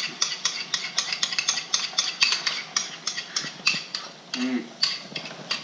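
A spoon scraping and clinking quickly against a bowl as beaten eggs are scraped out into a hot nonstick frying pan, many quick clicks over a faint sizzle.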